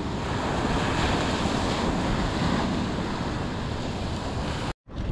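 Ocean surf breaking and washing up a sandy beach, a steady rush that swells and ebbs, with wind rumbling on the microphone. It cuts off abruptly near the end.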